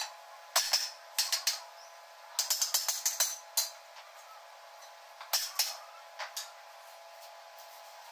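Hammer striking a welded steel box-section frame: sharp metallic blows in irregular groups, with a couple near the start, a quick run of about half a dozen around the middle, and a few more past five seconds.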